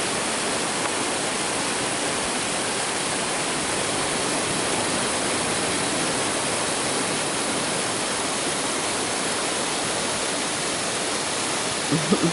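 Waterfall rushing steadily, an even unbroken roar of falling water. A brief voice-like sound comes right at the end.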